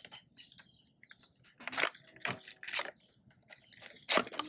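Plastic wrapping being crinkled and torn open by hand, a series of sharp crackles, the loudest about two and about four seconds in.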